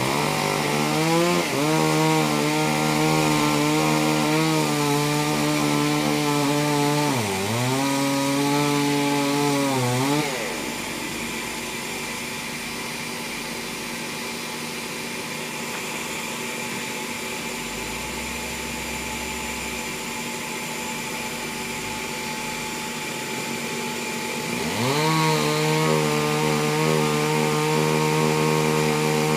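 Two-stroke chainsaw ripping a log lengthwise at full throttle. The engine bogs briefly about seven seconds in, then falls off a few seconds later to a fainter steady running. Near the end it revs back up to full speed and cuts on.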